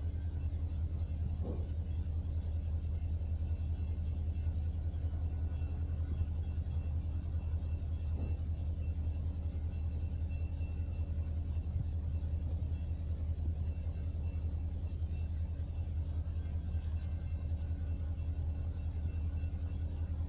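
Steady low rumble of an idling diesel engine, a few deep tones held unchanged throughout, from the stopped freight train's locomotive out of view.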